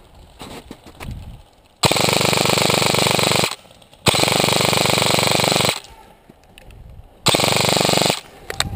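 Lonex M4-style airsoft electric rifle (AEG) firing three full-auto bursts, the gearbox cycling in a fast rattle. The first two bursts last close to two seconds each, and the last one, near the end, is shorter.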